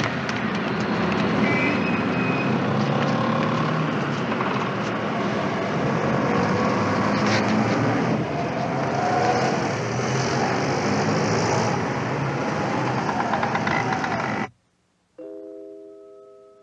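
Busy street traffic: cars passing close by with a dense, steady mix of engine and tyre noise. It cuts off suddenly near the end, and a few sustained, ringing musical notes follow.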